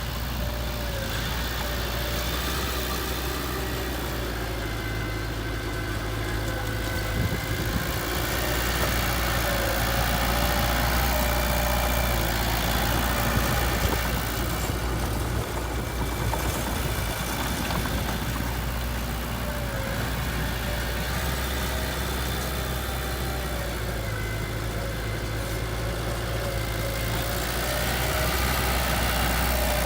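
Heavy diesel earthmoving-machine engine running steadily at a low, idle-like speed, getting a little louder for several seconds partway through.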